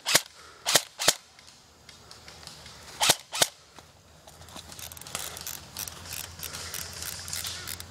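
Airsoft guns firing single shots: five sharp snaps, three in the first second or so and a close pair about three seconds in, followed by fainter, scattered clicks and pops in the second half.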